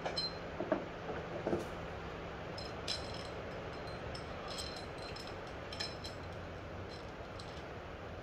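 Light metallic clinks and small knocks, scattered through, of a timing chain and cam sprocket being handled and fitted at the front of a bare 6.0 LS V8 block, over steady background hiss.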